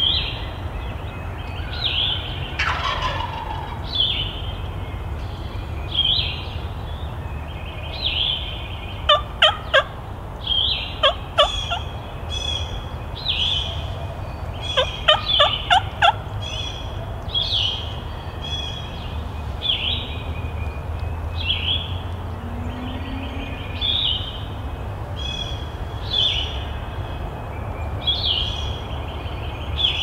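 Wild turkey gobbling: two loud rattling bursts, about a third of the way in and again about halfway. Through it, a songbird repeats a short, high, falling call every couple of seconds.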